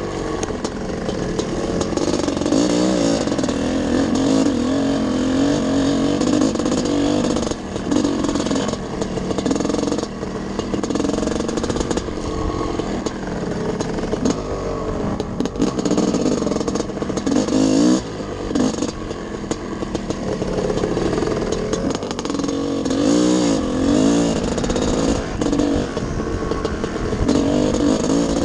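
Dirt bike engine under way on a trail ride, heard from the rider's own bike, its pitch rising and falling again and again as the throttle is opened and closed.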